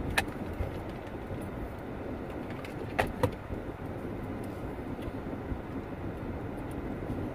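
Steady road and engine noise inside a moving SUV's cabin, with a sharp click just after the start and two more close together about three seconds in.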